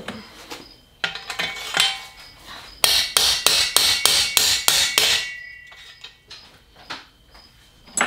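Hammer blows knocking a bottom bracket back out of a BMX frame: a quick run of about ten metal-on-metal strikes, about four a second, with a ringing tone, after some light clinking of parts and a few scattered knocks.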